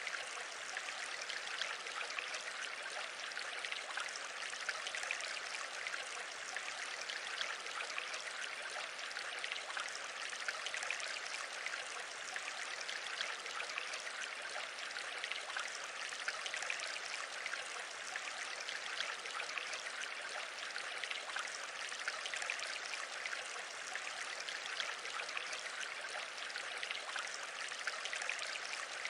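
A steady, even rushing noise with no breaks or distinct events.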